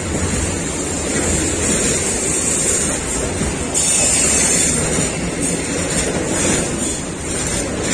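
Freight train of tank wagons rolling past close by: a steady noise of wheels running over the rails, with a brief louder hiss a little under four seconds in.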